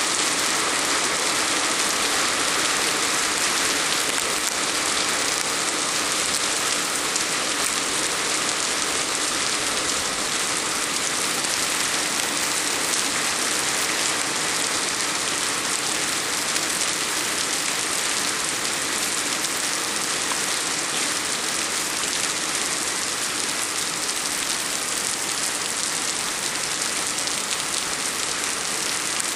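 Heavy rain pouring down steadily: a dense, even hiss with no breaks.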